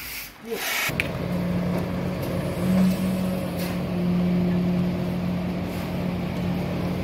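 A truck-mounted concrete mixer pump running steadily with an even engine hum, starting abruptly about a second in.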